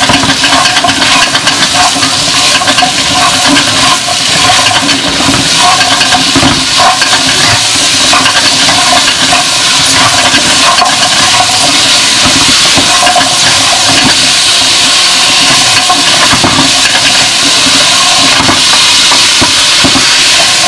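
Sliced zucchini and fried tofu sizzling in hot oil in a nonstick wok, loud and steady, while a plastic spatula stirs and scrapes against the pan.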